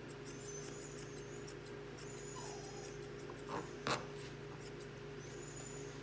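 Thinning shears snipping over and over through a puppy's leg hair, a quick run of small sharp clicks, with faint high squeaks now and then. Two louder knocks come close together a little before four seconds in.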